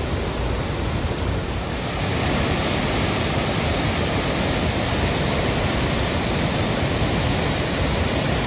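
White River Falls, a whitewater waterfall, rushing in a steady, dense roar of falling water, a little louder about two seconds in.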